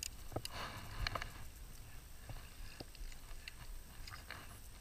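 Hooked rainbow trout splashing lightly at the surface as it is played in: scattered small, irregular splashes and knocks.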